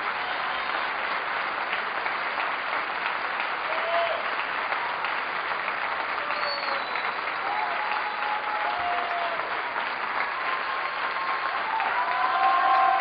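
Theatre audience and judges applauding steadily, with a few voices calling out over the clapping. The applause swells a little near the end.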